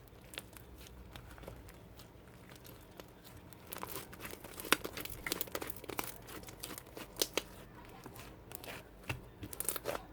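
Crinkling and crackling handling noise, like paper or plastic being crumpled. It starts sparse and becomes busier from about four seconds in, with a few sharp, louder crackles.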